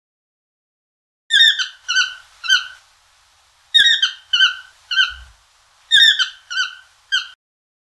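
Toucan calling: about ten short, squeaky, downward-slurring notes in three bursts of three or four.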